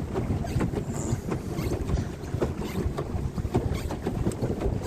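Wind buffeting the microphone in a steady low rumble, with irregular small knocks and splashes of water around a paddle boat.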